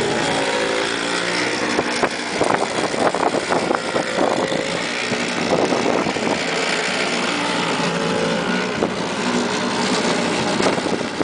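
Blizzard wind gusting across the microphone with a steady rush and crackle, and an engine running underneath, clearest near the start and again in the second half.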